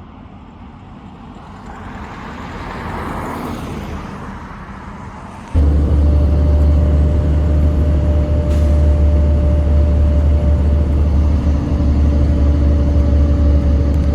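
A vehicle passes, its noise swelling and fading. About five seconds in, a loud, steady low rumble with a constant hum starts suddenly and holds, like a motor vehicle running close by.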